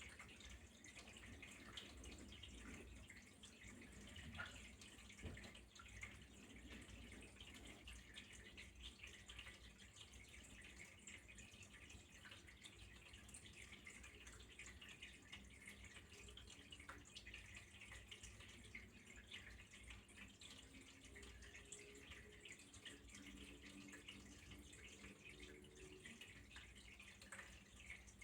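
Faint, steady trickle of flowing water with fine dripping and splashing, keeping up without a break.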